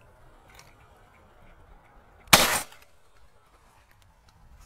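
A single shot from a Browning Maxus 12-gauge semi-automatic shotgun, a sharp crack about halfway through that dies away within a fraction of a second.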